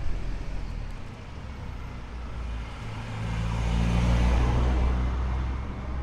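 A car driving past close by, its engine and tyre noise swelling to a peak about four seconds in and then fading, over a low steady street rumble.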